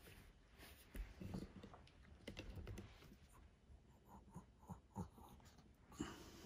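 Faint scuffing and scattered light clicks from a small Chihuahua moving about on carpet, rubbing its face down and pawing at the floor.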